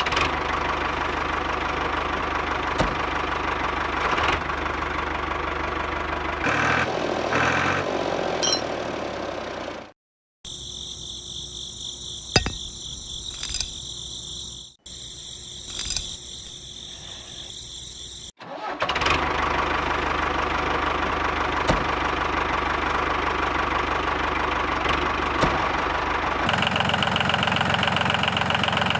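Small engine of a DIY mini tractor running steadily in several cut-together stretches. In the middle stretch it is quieter, with a steady high whine, and near the end the pitch steps to a new steady note.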